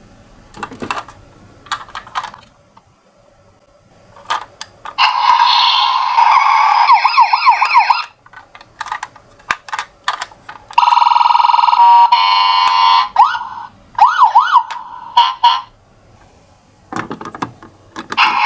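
Toy ambulance's electronic siren sounding in short, loud bursts that switch between patterns: a rising-and-falling wail, a steady tone, a fast pulsing warble and quick sweeps. Short clicks and quiet gaps fall between the bursts.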